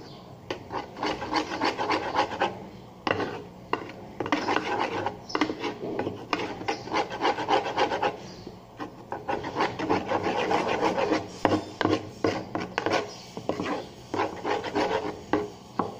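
Slime mixture being stirred by hand in a container, the stirring utensil scraping and rubbing against the container's sides in quick, irregular strokes. The mixture is just starting to come away from the container but is not yet pulling into slime.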